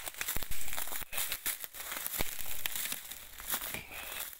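Footsteps through a woodland floor: irregular crackling of dry leaf litter and sharp snaps of dead twigs and branches underfoot, with rustling of bracken being pushed through.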